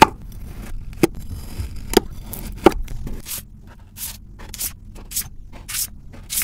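Steel knife slicing through packed kinetic sand: a sharp click on the first cut and three more sharp ticks over the next three seconds. Then comes a run of short grainy scrapes, about one every half second, as a fork pulls the cut pieces of sand apart.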